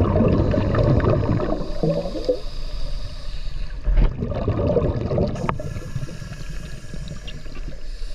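Water gurgling and bubbling, loudest in the first second or so and then quieter, with a sharp click about four seconds in.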